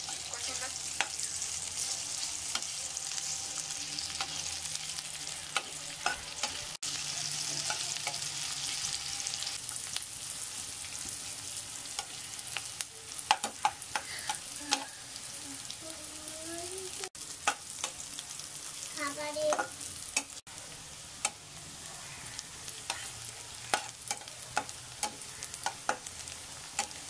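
Sliced onions sizzling in hot oil in a metal kadai, frying to brown, with a steel spatula scraping and knocking against the pan as they are stirred.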